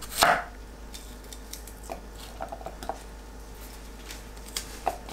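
A chef's knife cuts through an onion onto a wooden cutting board once, about a quarter second in, followed by faint light ticks and crackles as the onion layers are pulled apart by hand.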